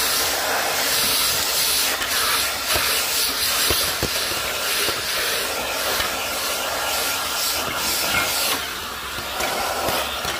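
Filter Queen Majestic canister vacuum running, its round dusting brush sucking fine dust off a wooden shelf: a steady rushing hiss of air with a faint motor whine, and a few light knocks as the brush touches the wood.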